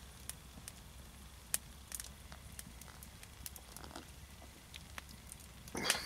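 A man drinking a pint of beer: quiet sips and swallows, then a breathy exhale of satisfaction near the end. Faint scattered clicks and ticks run underneath.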